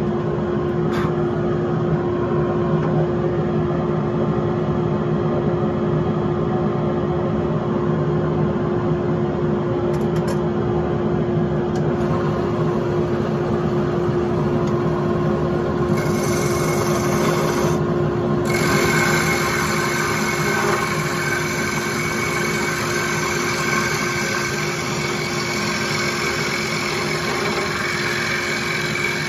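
Wood lathe running steadily with a constant motor hum. About halfway in, a turning tool starts cutting the spinning wood, adding a higher hiss that stops briefly once and then carries on.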